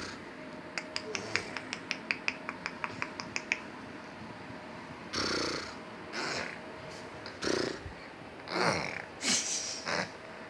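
Baby making funny mouth noises: a quick run of clicks, about six a second, then several short breathy, snorting noises.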